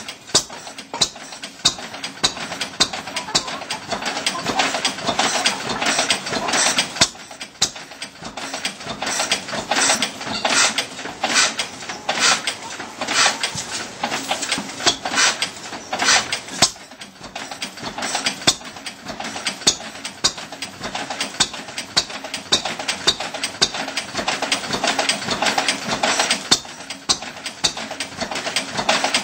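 1911 Langwill Bros single-cylinder stationary engine, an early Lister L type rated 5 HP at 450 rpm, running with a steady beat of sharp strokes and mechanical clatter.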